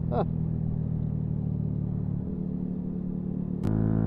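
Single-cylinder engine of a Yamaha MT-125 motorcycle running at a steady speed on the road. Near the end there is a sharp click, then a louder, fuller engine note for about a second.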